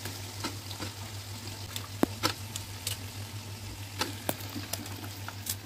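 Chicken pieces frying in oil and onion-tomato masala in a kadai: a steady sizzle with scattered sharp crackles and pops.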